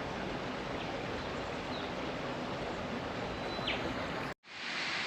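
Steady rushing of water from a waterfall down in the gorge, with a bird giving one short falling whistle near the end. The sound cuts out abruptly for a moment near the end, then the rush resumes.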